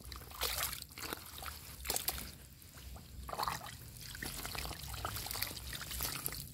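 Hands groping and digging through mud and shallow water in a drained fish pond, with irregular splashes, squelches and trickling water.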